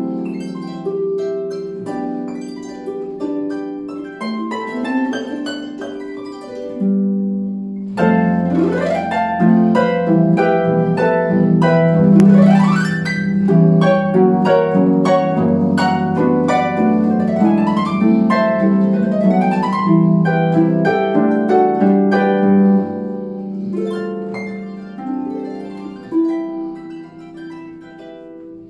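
Solo concert pedal harp playing plucked notes and chords. A short lull comes about seven seconds in, then a louder passage with several fast rising runs, and the playing grows quieter near the end.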